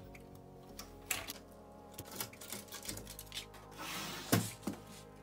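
Background music over the clicks and knocks of a double cassette deck being taken apart by hand: its plastic cassette mechanism block and metal chassis clatter as they are separated, with the loudest knock about four seconds in.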